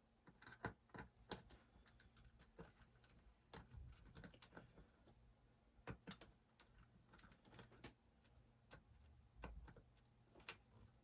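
Faint, scattered small clicks and scrapes of a screwdriver working the screws that hold a laptop's hard drive, with a brief thin squeak about three seconds in. A faint low electrical hum runs underneath.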